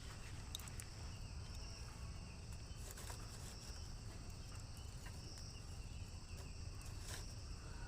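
Crickets trilling faintly and steadily, over a low rumble, with a few soft clicks.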